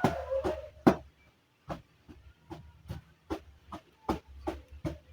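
Cupped hands clapping rhythmically on a patient's back through a towel, a little over two claps a second with a short pause about a second in. This is chest percussion to loosen sputum heard in the upper chest.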